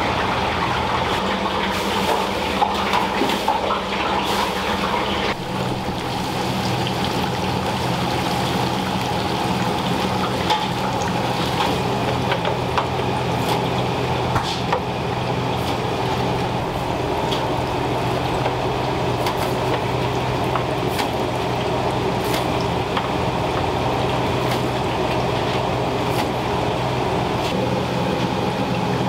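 Chicken pieces deep-frying in hot oil, a steady crackling sizzle with small pops and clicks scattered through it, over a steady low machine hum.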